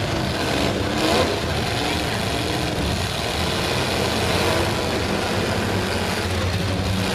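Several demolition derby stock cars' engines running and revving together in a steady, dense din, with a brief louder moment about a second in.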